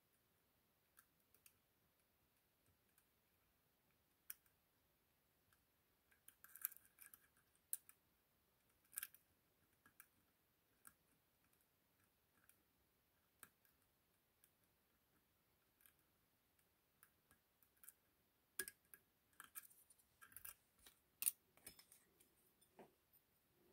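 Scattered small metallic clicks and scrapes of a lock pick working the pins inside an ASSA 6000 high-security cylinder under tension. A few clicks come about a third of the way in, and they get busier near the end.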